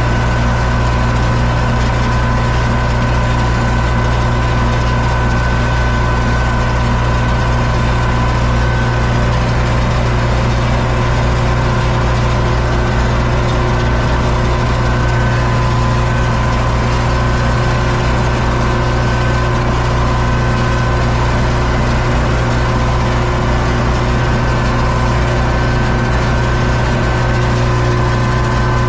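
Universal U650 tractor's four-cylinder diesel engine running steadily under load while pulling a seed drill, heard from inside the cab. A steady high whine sits over the engine note.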